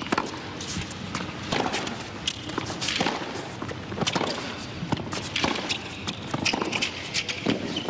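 Tennis baseline rally on a hard court: a racket strikes the ball and the ball bounces, a sharp pop about every second, back and forth between the two players.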